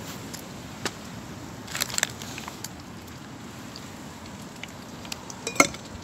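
Wood campfire crackling, with a few sharp clicks and knocks as things are handled at a metal mug on a wooden table; the loudest knock comes a little before the end.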